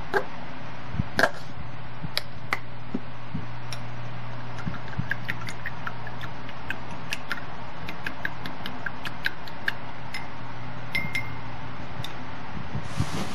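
A bamboo chopstick clinking and tapping against a glass bowl while stirring sauce: light, irregular ticks, with a sharper click or two about a second in, over a steady low hum.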